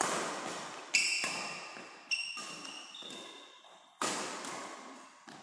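Badminton rally: rackets strike the shuttlecock with sharp hits about a second apart, four in all, the first a jump smash, each one ringing on in the hall. Short high squeaks of shoes on the court floor come between the hits.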